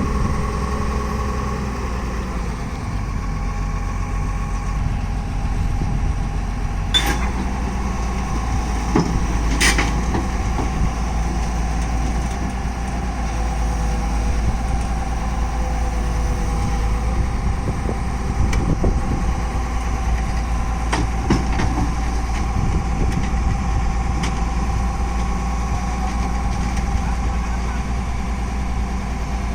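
Tata Hitachi excavator's diesel engine running steadily under hydraulic load, growing louder and deeper about seven seconds in, with a couple of sharp metal clanks around that time.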